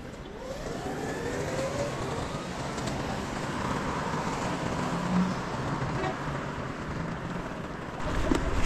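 City road traffic in the rain: cars passing on a wet street as a steady noisy wash that builds over the first few seconds.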